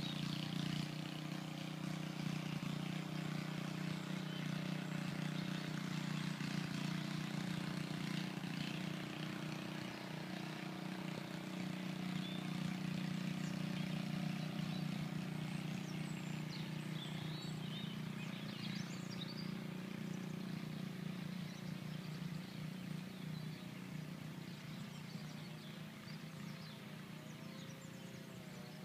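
Steady low hum of outdoor background noise, with a few faint bird chirps around the middle.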